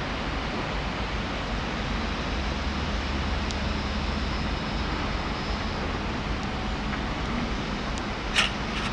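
Steady outdoor background noise beside the railway, with a low hum for a few seconds in the middle and a short sharp click near the end.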